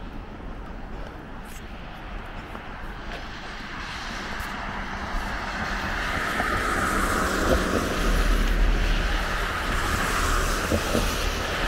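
Steady road noise from passing traffic, a rushing hiss that swells louder over several seconds and stays up.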